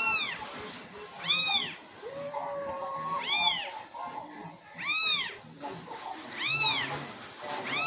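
High-pitched kitten meows, the same short rising-and-falling call repeated about every one and a half seconds, from a recording of kittens hidden in a bag. A lower, drawn-out call sounds once, a little after two seconds in.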